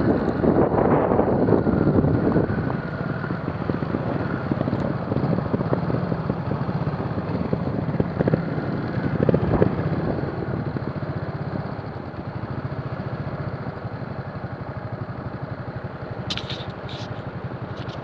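Trials motorcycle engine running at low revs with a steady chug of firing pulses. It is louder in the first couple of seconds and again about halfway through, then settles into an even, quieter idle-like chug, with a few light clicks near the end.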